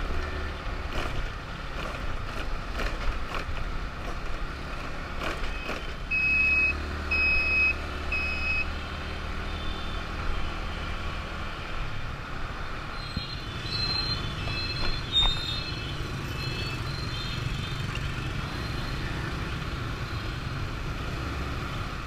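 Motor scooter riding in city traffic, with a steady low engine and road rumble. About six seconds in come three evenly spaced beeps at one pitch, and near the middle a cluster of short vehicle horn beeps at several pitches.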